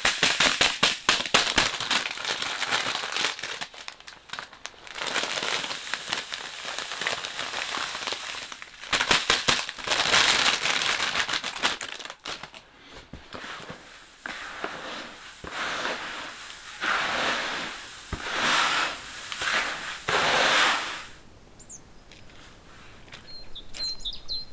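White clover seed poured from a plastic bag into a bucket, the seeds pattering in, followed by bursts of plastic crinkling and rustling as the bag and seed are handled. A few faint bird chirps near the end.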